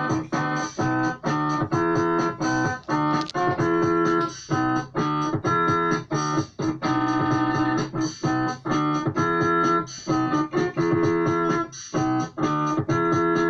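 Background music: a keyboard instrumental of chords played in a steady, choppy rhythm.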